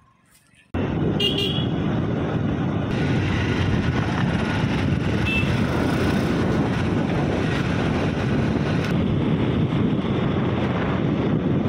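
Loud, steady road and traffic noise as heard riding on a motorbike, with a short horn toot about a second in. It starts abruptly just under a second in.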